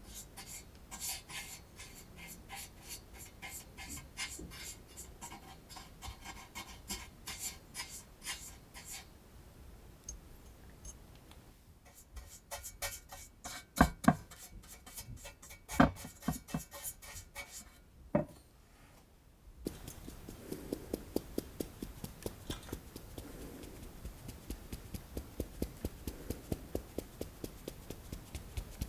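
Pastry brush scratching back and forth over a metal madeleine pan as it is coated with butter, in quick repeated strokes. A couple of loud knocks come about halfway through. Later the strokes settle into a steady rhythm of about three or four a second.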